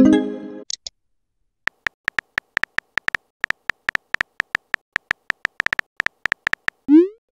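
Chat-app sound effects: a message-arrival chime at the start, then rapid keyboard tap clicks, about six a second, as a message is typed, ending with a short rising bloop as it is sent near the end.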